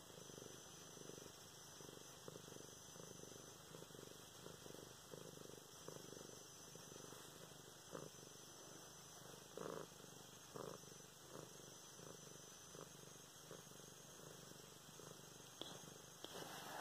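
Domestic cat purring faintly and steadily while being stroked, contented. A few brief soft rustles come in about halfway through.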